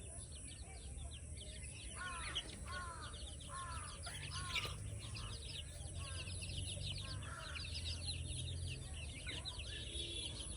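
Many birds chirping and twittering, with one bird giving a string of about six short arching calls, a little over half a second apart, in the middle. A low steady hum runs underneath for a while.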